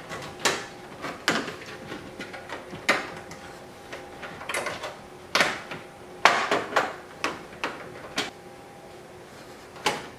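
Hand ratchet tightening the screws of a carbon fiber diffuser fin: irregular sharp clicks and knocks with a few short rasping runs of clicking, some sounds stopping and starting again.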